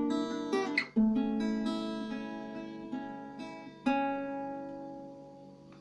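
Acoustic guitar played fingerstyle without singing, closing out the song: a fresh chord about a second in and another near four seconds, the last one left to ring and fade away.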